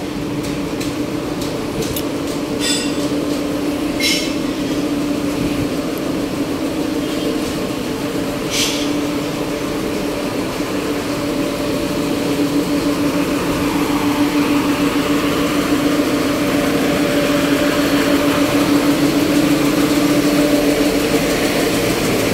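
An engine running steadily with a constant hum, while a louder mechanical rumble of traffic or machinery builds from about halfway through. A few sharp clicks come in the first third.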